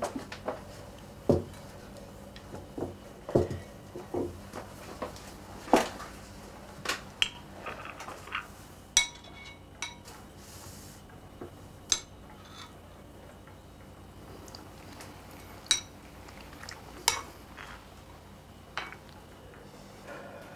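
A spoon clinking and tapping against a bowl while eating: irregular light knocks, busier in the first half, with a couple of short ringing clinks about nine seconds in.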